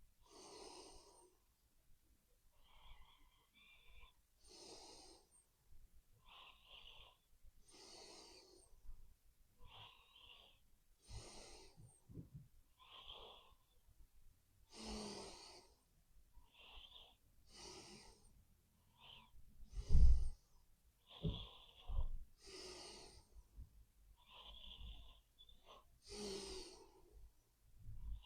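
A sleeping person snoring, with wheezy, noisy breaths in and out, one breath about every three to four seconds. About twenty seconds in there is a single loud low thump.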